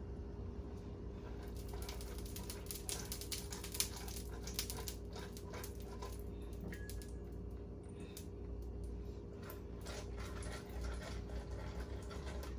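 Batter being stirred in a stainless steel mixing bowl: runs of quick light clicks and scrapes, with a pause in the middle, over a steady low hum.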